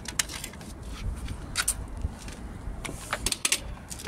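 Scattered short clicks and light clatter of hand tools, cables and plastic pipe being handled on a tiled floor, over a low rumble.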